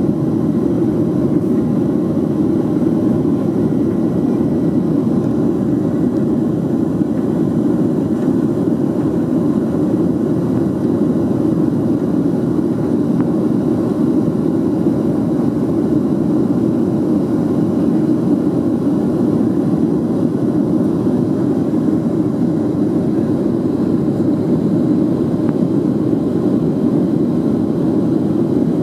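Steady cabin noise inside a Boeing 737-800 in flight: an even, low-pitched drone from its CFM56 jet engines and the airflow over the fuselage, heard through the cabin wall.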